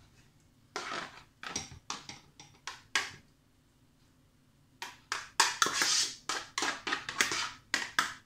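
Spoon scraping and knocking against a plastic steamer as steamed cauliflower florets are pushed out into a dish, in quick strokes: a short run about a second in, then a denser, louder run from about five seconds in.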